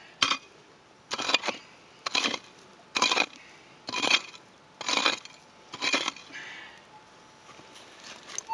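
A prospector's pick striking and scraping into hard, gravelly soil while digging out a gold-detector target. There are seven chopping strokes about once a second, and they stop about six seconds in.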